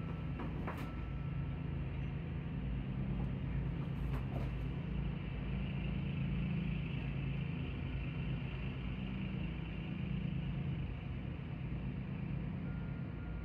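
Steady low engine drone, muffled through a closed window, with a few faint thin high notes near the start and again near the end.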